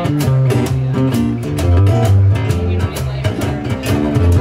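Live acoustic trio playing an instrumental passage: an acoustic bass guitar plays a prominent moving bass line under acoustic guitar, with cymbal and hand-drum percussion keeping the beat.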